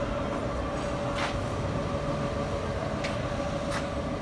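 A steady mechanical hum over a low rumble, with three short hisses.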